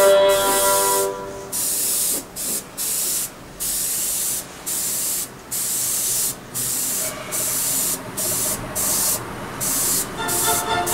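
Sata Graph 3 airbrush spraying in about a dozen short bursts of hiss, each under a second, as the trigger is pressed and released. Music drops out about a second in and returns near the end.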